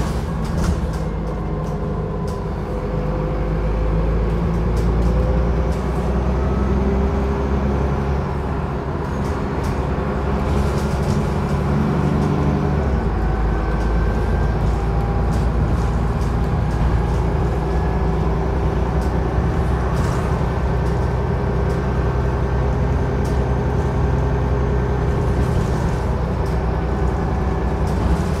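Dennis Trident double-decker bus on the move, heard from inside the upper deck: a steady engine and drivetrain drone with several whining tones that shift in pitch. The low engine note changes about halfway through, and a few short knocks come through.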